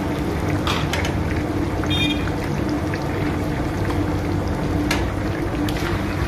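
Battered fish deep-frying in a large iron karahi of hot oil, sizzling and bubbling steadily, with a few sharp clicks and scrapes of a metal skimmer against the pan, over a steady low hum.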